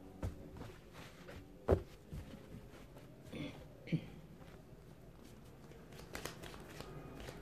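Spanish-suited playing cards being gathered up off a cloth-covered table and shuffled by hand: soft card rustling with several sharp taps, the loudest about two seconds in.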